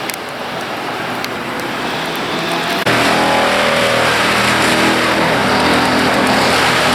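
An engine running, steadily growing louder, then much louder and steady from an abrupt change about three seconds in.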